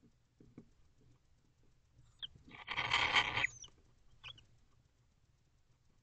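Barn owl giving one rasping hiss, about a second long, made of rapid fine pulses. A faint short tick comes just before it and another just after.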